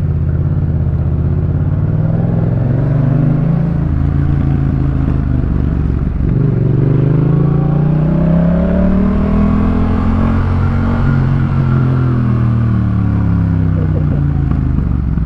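Yamaha MT-07's parallel-twin engine through a Jeskap K4 full exhaust, heard while riding: the note climbs, breaks off briefly about six seconds in, climbs again to a peak, then eases off near the end.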